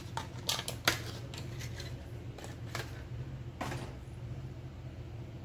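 Irregular light clicks and taps of small hard parts being handled while an NVMe SSD is fitted into an open laptop, thickest in the first four seconds, over a steady low hum.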